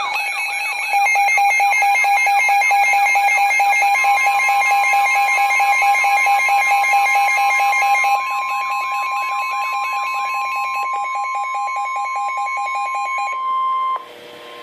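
Weather radio alert alarm: a pulsing, warbling electronic beeping, joined about four seconds in by the steady 1050 Hz NOAA Weather Radio warning tone. The beeping stops about a second before the steady tone, which cuts off near the end and leaves faint static.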